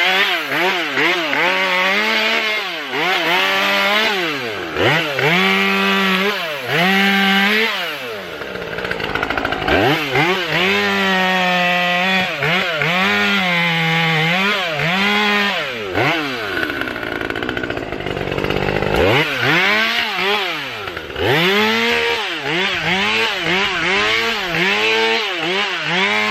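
Husqvarna T540 XP top-handle two-stroke chainsaw run hard and cutting wood. The engine pitch swoops up and down over and over as the throttle is squeezed and released, and it holds a high steady pitch through the cuts.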